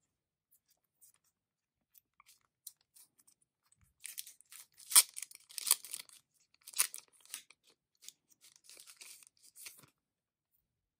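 Thin plastic crinkling and crackling as clear plastic photo cards are handled and their protective film is peeled. It is a few faint ticks at first, then irregular bursts of sharp crackles from about four seconds in.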